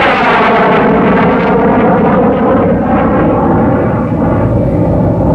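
Logo-intro sound effect: a loud, airplane-like rushing tone whose pitch falls in the first half-second, then holds as a steady drone.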